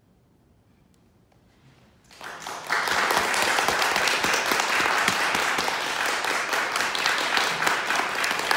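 Near silence, then about two seconds in an audience breaks into applause, which holds steady through the rest.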